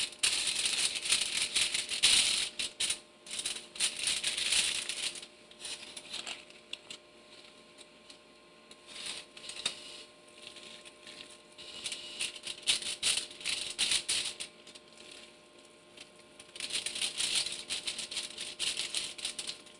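Crinkly rustling and rapid crackling from hands working at a counter while rolling cabbage rolls, in bursts during the first few seconds and again near the end, quieter in between, over a faint steady hum.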